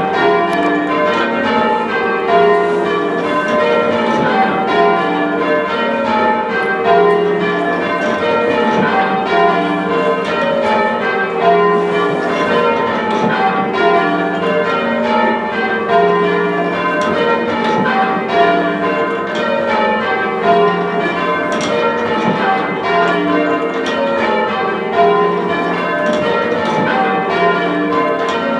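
A ring of six heavy church bells rung full circle in change ringing. The strikes follow one another evenly without a break, each bell's hum lingering under the next.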